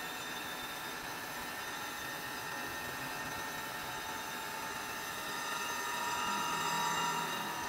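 Crankshaft grinding machine's abrasive wheel grinding the journals of a Massey Ferguson tractor crankshaft: a steady grinding noise with several high tones, growing louder for a couple of seconds near the end.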